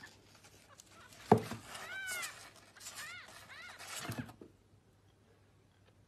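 Very young kitten mewing, a handful of short, high cries that rise and fall, with a sharp thump about a second in and a softer knock around four seconds.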